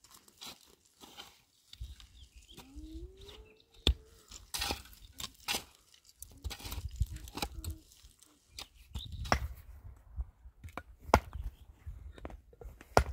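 Picks and mattocks striking and scraping stony ground while digging a trench, a string of irregular sharp knocks and clinks of metal on rock, the loudest about four seconds in, over a low wind rumble.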